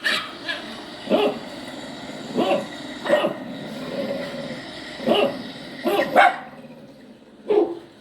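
Poodle puppy crying out in short yelping barks, about eight in all, one drawn out a little longer about halfway through.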